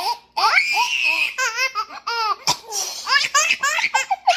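Baby laughing hard in a string of high-pitched bursts, starting with a long breathy squeal. There is a single sharp click about halfway through.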